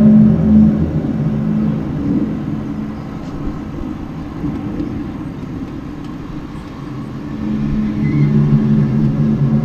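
Low, droning hum made of several steady tones over a rumble. It fades a few seconds in and swells back loudly near the end. It is one of the unexplained 'strange sounds' from the sky that the recorder cannot identify.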